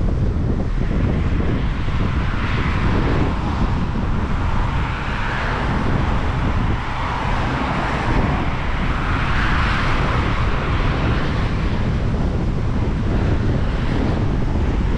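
Strong wind buffeting the microphone with a steady low rumble, overlaid by rushing swells of noise that rise and fade every few seconds.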